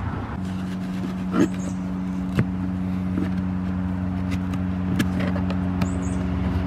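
A few light clicks and knocks as a new pleated cabin air filter is pinched at the corners and pressed into its snug plastic housing, over a steady low hum.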